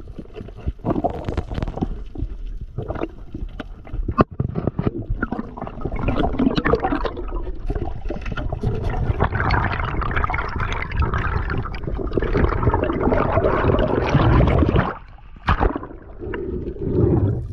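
Underwater water and bubble noise: scattered sharp clicks and knocks over the first few seconds, then a dense bubbling, rushing noise for several seconds that stops suddenly about fifteen seconds in, followed by a single sharp click and a duller, lower rush.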